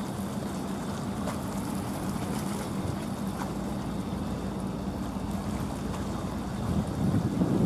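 Japan Coast Guard patrol vessel Kunigami under way at a distance: a steady low engine drone over a hiss of wind and water. Wind starts buffeting the microphone near the end.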